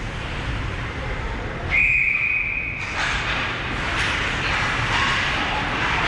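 Ice hockey referee's whistle blown once to stop play: a single steady high blast about a second long, over steady background noise.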